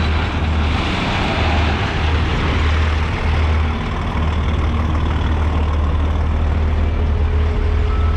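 Heavy truck's diesel engine running with a steady low drone and road rumble, heard from inside the cab.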